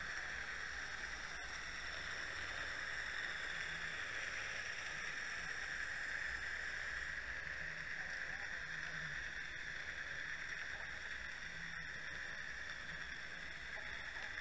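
Steady underwater noise picked up by a submerged camera: a hiss with several faint, steady high whines layered over it, one of them cutting out about halfway through.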